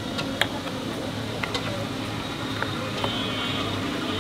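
A few sharp, light clicks of a metal spoon against a ceramic plate as sauce is spooned onto mashed eggplant, over a steady low background hum.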